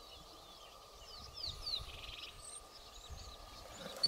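Quiet open-bush ambience with faint bird calls: a few quick down-slurred chirps about a second and a half in, over a faint steady high hum.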